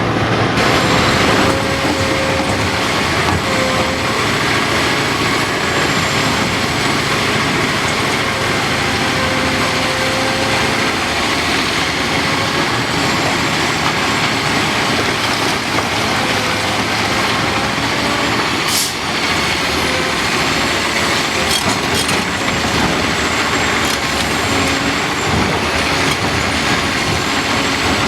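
Heavy diesel earthmoving equipment, a Caterpillar 5130B hydraulic excavator loading Caterpillar 777 haul trucks, running steadily with a faint wavering whine over the engine noise. A single sharp tick comes about two-thirds of the way through.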